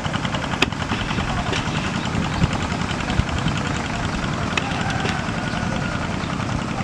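A small engine running steadily with a fast, even pulse, with a few sharp clicks over it.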